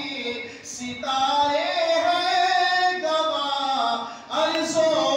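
A man singing a manqabat, an Urdu devotional hymn, solo and unaccompanied into a microphone, holding long melodic lines that glide up and down. He breaks off briefly about three-quarters of a second in and again about four seconds in.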